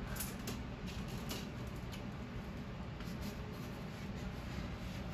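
Faint scratchy strokes of a felt-tip marker writing a number on poster board, over a steady low background hum.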